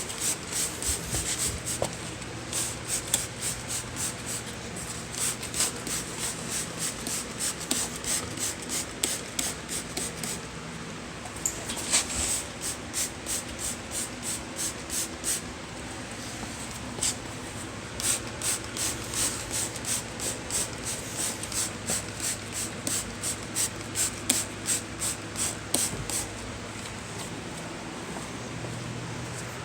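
Trigger spray bottle squirting hull cleaner onto the bottom of a boat: quick hissing sprays about two a second, in runs with short pauses between them.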